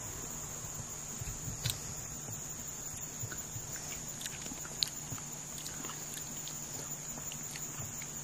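Steady high-pitched insect drone with a few short soft clicks and mouth sounds as sauce is tasted off a finger.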